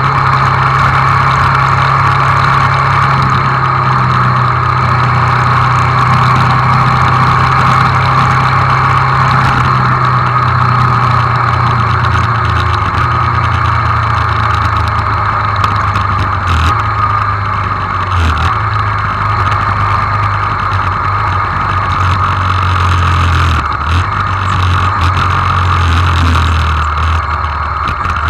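Hyosung GD250N single-cylinder motorcycle engine running under way with a steady rush of wind and road noise. The engine hum drops lower about twelve seconds in as the bike slows from about 70 km/h, with a couple of brief breaks a few seconds later.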